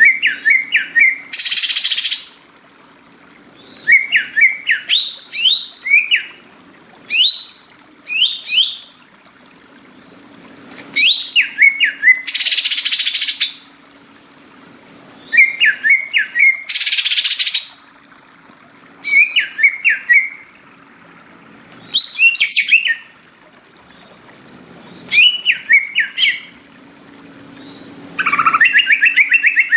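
Cucak ijo (green leafbird) singing in repeated bursts of quick chirping, whistled phrases, three of them broken by a harsh, noisy call about a second long. Near the end a fast, continuous trill begins.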